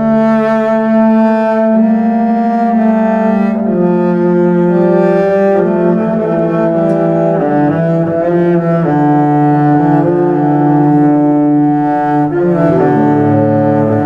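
Background music: slow instrumental music with held low string notes that change every second or two.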